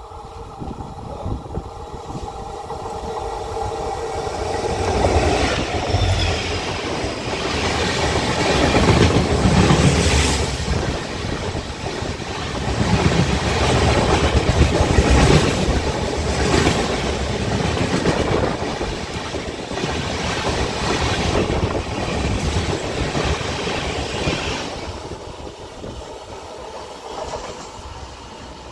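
Passenger train coaches passing close on the adjacent track. The sound builds over the first few seconds, then the wheels clatter over the rail joints in repeated beats for a long stretch, and it dies away a few seconds before the end as the last coach goes by.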